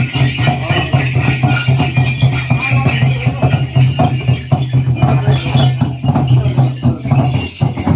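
Ritual music of rhythmic jingling and rattling percussion, struck densely and unevenly, over a steady low hum.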